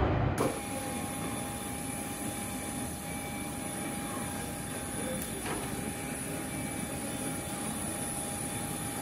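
Steady airport apron ambience: a continuous hum with a thin, steady high whine from the parked jet and ground equipment. A louder, deeper sound cuts off about half a second in.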